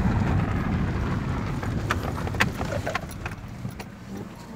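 Car cabin noise while driving a rough gravel mountain road: a low rumble of engine and tyres with a few sharp rattles and clicks, fading toward the end.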